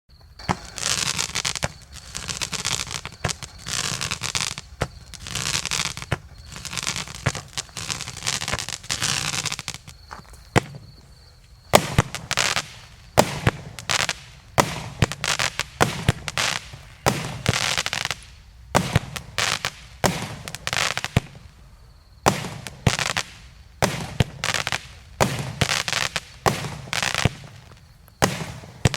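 Joker JF C15-49/01 "Katyusha" firework battery firing its shots in quick succession. For the first ten seconds or so each shot has a long hissing tail. After that come sharp bangs, each trailing off briefly, in rapid groups with short pauses between them.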